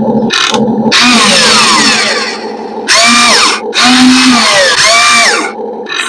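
Electric drive and pump motors of radio-controlled construction models running, with whines that rise and fall in pitch, about once a second from about three seconds in, over a steady hum.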